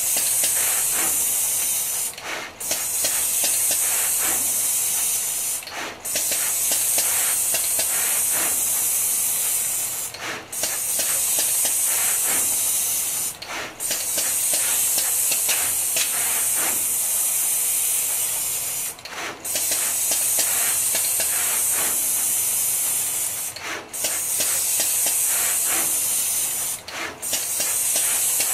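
Neoden 8 pick-and-place machine running, placing parts on a PCB panel: a steady high hiss with many faint quick clicks from the moving placement head. The hiss drops out briefly every few seconds.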